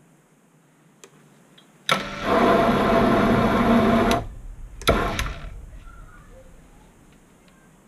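Proxxon PD 250/e mini lathe running under power for about two seconds while the tool takes a single-point threading pass in steel, starting suddenly with a click about two seconds in and stopping abruptly. About a second later it runs again briefly and then fades away as it coasts down.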